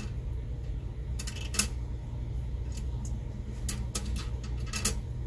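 Small steel washers and a bolt clinking against each other and the bench top as they are picked up and put onto the bolt: a scatter of light metal clicks over a low steady hum.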